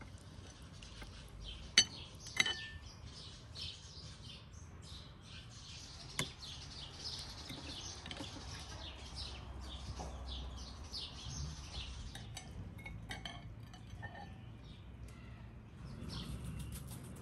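A metal spoon clinks sharply against a ceramic bowl, twice about two seconds in and once more about six seconds in, while cherries are scooped out. Birds chirp throughout.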